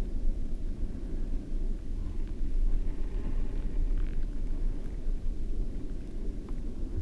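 Muffled, steady low rumble of shallow surf-zone water moving around an underwater camera on the sandy bottom, with a few faint ticks.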